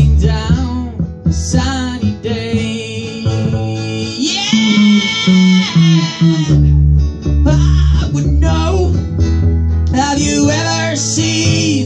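Acoustic guitar strumming with deep bass notes underneath, a small group playing music live.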